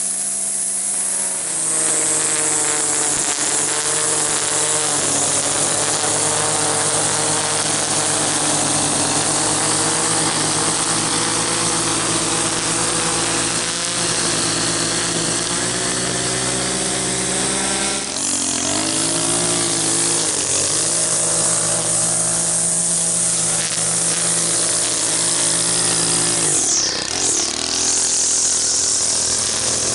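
Gas string trimmer engine running at high revs while cutting grass, with the pitch dropping and picking back up when the throttle is eased, once about eighteen seconds in and again near the end.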